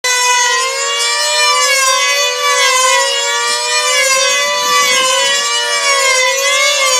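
Two F2D control-line combat models' 2.5 cc two-stroke engines running flat out: two high whines near the same pitch that weave up and down and cross as the planes circle and manoeuvre on their lines.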